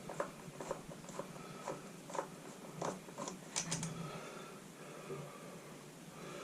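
Light clicks and taps of screws and plastic parts being handled while the recoil starter housing of an Echo backpack leaf blower is taken off, with a quick run of sharper ticks about three and a half seconds in.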